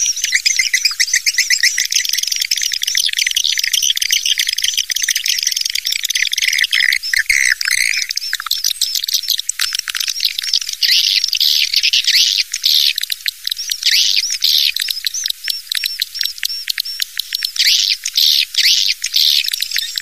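Recorded swiftlet calls, a swiftlet-house lure sound: dense, rapid twittering chirps and trills. Past the midpoint they become a fast, even stream of sharp chirps, and nothing is heard below the high twitter.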